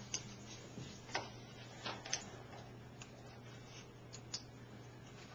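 Small, irregular clicks and taps of parts and a plastic bag being handled on a workbench, about one every half second or so, over a faint steady low hum.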